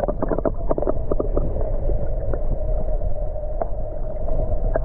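Underwater sound from a camera held below a lake's surface: a muffled low rumble with a steady hum, a quick run of clicks and bubble pops in the first second, then a few single clicks.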